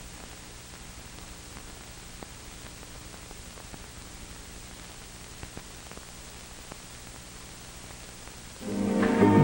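Steady hiss of an old soundtrack with a faint low hum and scattered clicks and pops. Near the end, music with guitar and strings comes in much louder.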